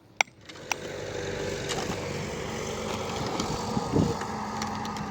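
Two last hammer strikes on a stake, then a motor engine comes in and runs steadily, with a brief low swell near the end.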